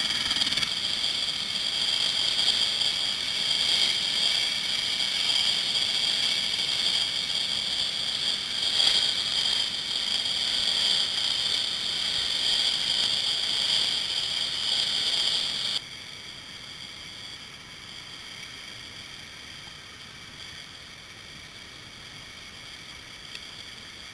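Helicopter turbine engine running on the ground with its rotor turning: a steady, high-pitched whine. It cuts off suddenly about two-thirds of the way through, leaving a much quieter hiss.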